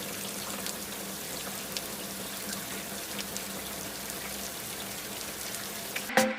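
Typhoon rain falling steadily, an even hiss with scattered small ticks of drops. Music with sharp plucked notes comes in near the end.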